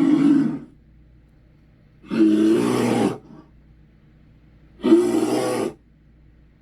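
Dog-monster growling roars, made as sound effects: three separate rough, pitched roars, each under a second long and about two and a half seconds apart.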